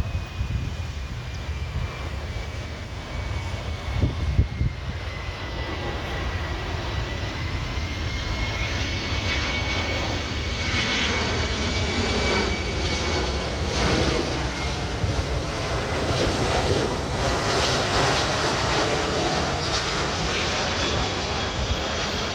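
Boeing 737-300F freighter's CFM56 turbofan engines as it flies in to land: a steady jet rumble with a thin whine that slides down in pitch over the first few seconds, then levels off and rises slightly as the sound grows a little louder.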